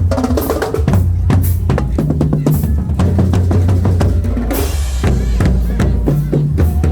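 Loud drum-heavy music: rapid bass and snare drum strikes over a steady heavy bass line, with a brief hiss-like swell about four and a half seconds in.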